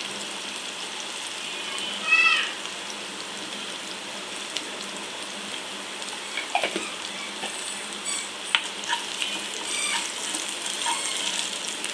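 Chopped onion, garlic and green chillies frying in hot oil in a non-stick kadai, a steady sizzle, with a wooden spatula stirring through them near the end. About two seconds in, a brief high-pitched call rises over the sizzle, the loudest sound here, and a few faint short chirps follow later.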